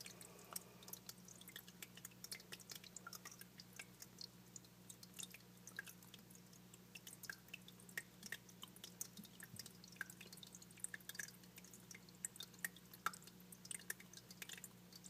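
Small vivarium waterfall trickling faintly, with scattered light drips over a low steady hum.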